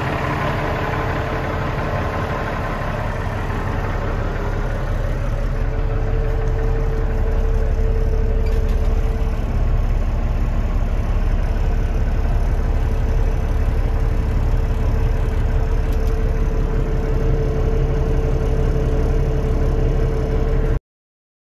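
Kenworth T800's emissions-deleted Cummins ISX diesel idling steadily, heard from inside the cab, with a steady droning tone over the low rumble. The sound cuts off suddenly near the end.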